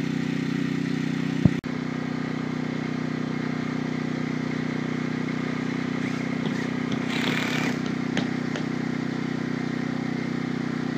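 An engine running at a steady, even hum, with a sharp click about a second and a half in and a brief scrape about seven seconds in.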